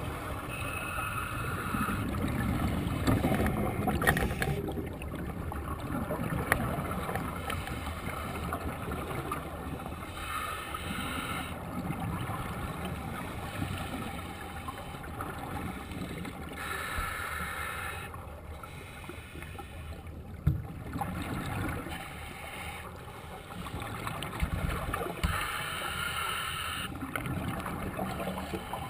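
Underwater breathing through a scuba regulator: a low water rumble with several hissing, bubbling breaths a few seconds apart. A short sharp knock about twenty seconds in.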